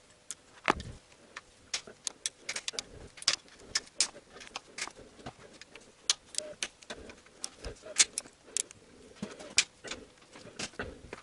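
Socket wrench working the 10 mm bolts of a CVT transmission oil pan: many irregular sharp clicks and metal clinks as the bolts are loosened and spun out, with a few faint short squeaks.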